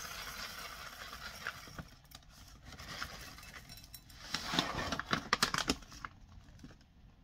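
Dry cat kibble poured from a bag into a food bowl: a rattling patter of small pellets, loudest in a dense run from about four and a half to six seconds in.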